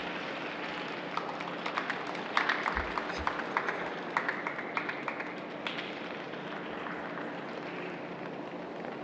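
Sparse applause from a small audience: a few people clapping irregularly, starting about a second in and dying away after about five seconds, over a steady background hum.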